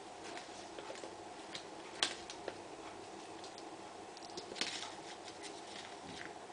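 A kitten playing on a laminate floor, making scattered light clicks and taps as its claws and a small toy hit the boards. A sharp click comes about two seconds in and a short flurry of taps a little after halfway, over a steady faint hum.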